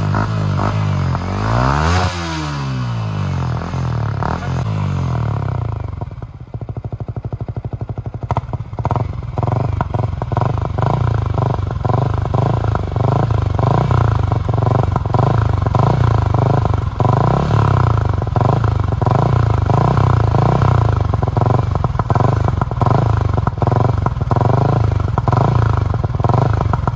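Yamaha R15 V3's single-cylinder engine through its modified stock exhaust. It is revved in the first few seconds, the revs rising and falling away, then dips about six seconds in and settles to a loud, steady idle broken by irregular sharp crackles.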